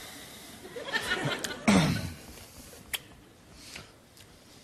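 Soft laughter and chuckling, with a falling vocal sound about two seconds in and a sharp click about three seconds in.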